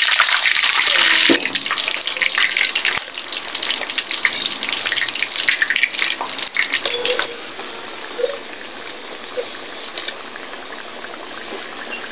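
Battered chicken feet deep-frying in hot oil in a wok, stirred with a metal ladle. A loud steady sizzle for about the first second and a half gives way to crackling and popping, which dies down to a quieter sizzle after about seven seconds.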